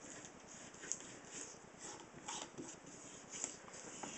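Faint, irregular rubbing and scuffing of latex-gloved fingertips on a painted helmet shell, working masking fluid off from under the paint. A few small clicks come through the rubbing.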